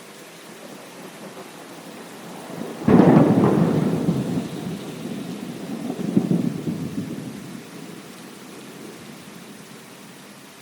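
Steady rain with a thunderclap: a sudden crack about three seconds in, then a rolling rumble that swells again around six seconds and dies away.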